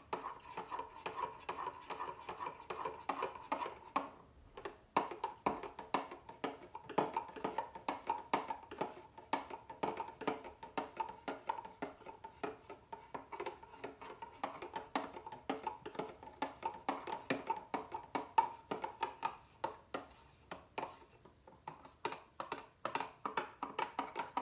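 Metal spoon stirring coffee in a mug, clinking rapidly against the sides with a short ringing note on each strike, a few clinks a second, as electrolyte powder is mixed in. The stirring pauses briefly about four seconds in.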